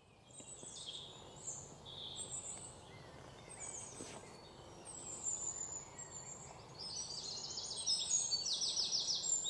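Woodland birdsong: several small birds chirping and calling, with a quick repeated trill that grows louder from about seven seconds in.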